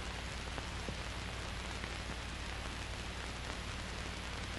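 Steady hiss with a low hum underneath: the background noise of an old film soundtrack, with no other distinct sound.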